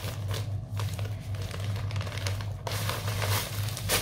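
Plastic packaging crinkling and rustling as a garment is unwrapped by hand, busier near the end, over a steady low hum.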